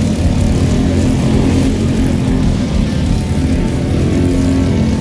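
Racing kart engine running at race speed, heard on board, its pitch shifting slightly up and down.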